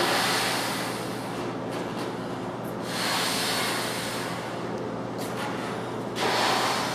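Breaths blown by mouth into a large latex balloon: three airy blows, one at the start, one about three seconds in and a short, louder one near the end, with quieter pauses between.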